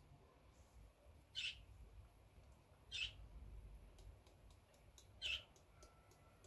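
Faint short bird chirps, three of them spaced a second or two apart, over near silence.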